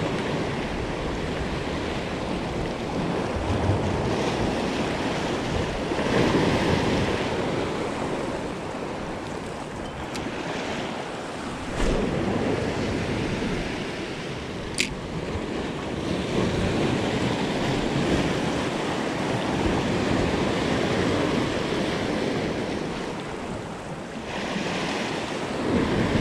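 Sea surf breaking and washing over shoreline rocks, swelling and easing every few seconds, with some wind on the microphone. Near the middle come a couple of brief sharp clicks.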